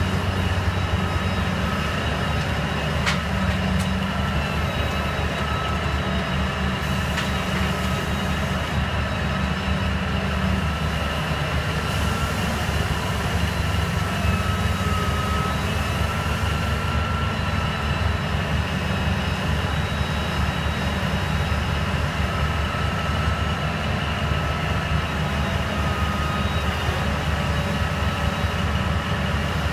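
Liebherr 984 Litronic shovel excavator digging: its big diesel engine and hydraulics run steadily under load, a low drone with a steady high whine over it.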